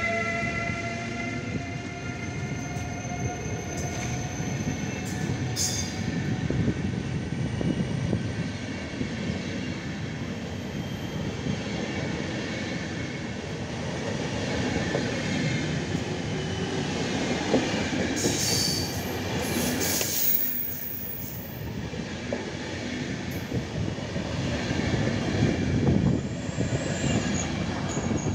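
PKP Intercity passenger coaches rolling past as the train pulls out, wheels rumbling on the rails with a few clacks over rail joints. Early on, the electric locomotive's whine rises slightly in pitch and fades. There is high wheel squeal around 18 to 20 seconds in and again briefly near the end.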